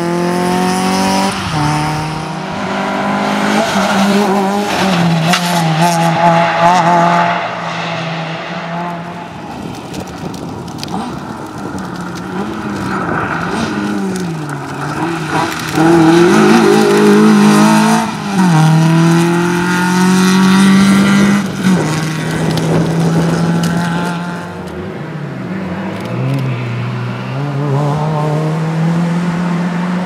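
Fiat Cinquecento rally car's engine at full throttle, rising in pitch through each gear and dropping sharply at every upshift. It passes loudest about halfway through.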